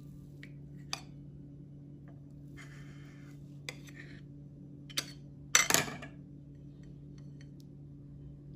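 Dishes being handled on a kitchen countertop: a few light clicks and clinks of a plate against the counter and a wire cooling rack, with a louder short clatter a little past halfway, over a steady low hum.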